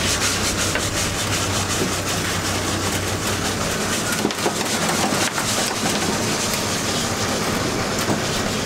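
Wire crab pot being shaken out over the culling box: a continuous rattling and scraping of wire mesh and crabs. Under it, the boat's engine runs with a steady hum.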